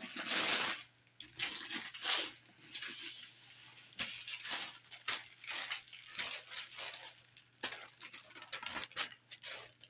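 Clear plastic wrap crinkling as it is pulled off a rolled diamond painting canvas, and the stiff canvas rustling as it is handled. The sound comes in short, irregular bursts, loudest in the first second and again about two seconds in.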